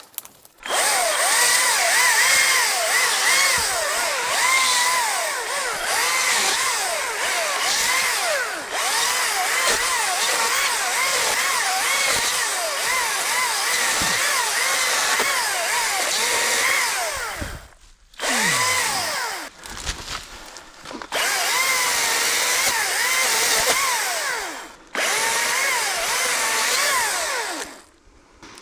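Battery-powered ECHO DCS-2500T top-handle chainsaw cutting. The electric motor's whine and the chain noise dip and recover in pitch again and again as the chain bites. It runs for about seventeen seconds, stops, then comes back in three shorter cuts near the end.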